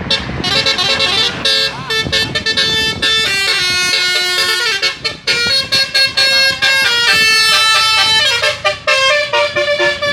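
A tour bus's Basuri telolet horn playing a tune: several horn tones sound together and step up and down in pitch, note after note with short breaks between.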